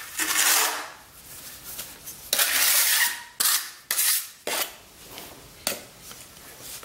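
Small trowel scraping patching mortar out of a bucket: a series of rough, gritty scrapes of uneven length, several short ones in quick succession in the middle.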